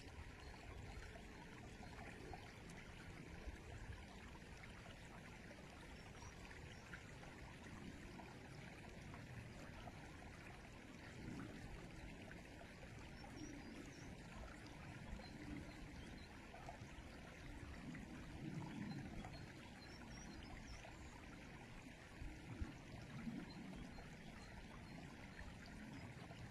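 River water flowing, a faint, steady rushing.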